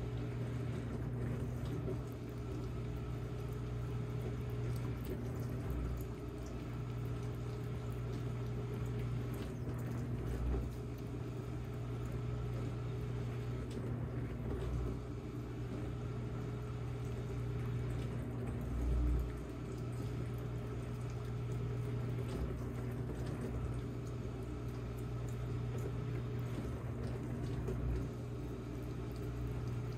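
Steady low hum of a running household appliance under an even hiss, with a couple of soft low thumps about a third and two thirds of the way through.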